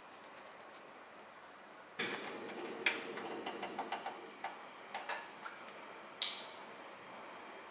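Gas stove burner being lit: a sudden burst of gas hiss as the flame catches about two seconds in, then a run of irregular sharp clicks and one louder click about six seconds in, leaving the burner hissing faintly.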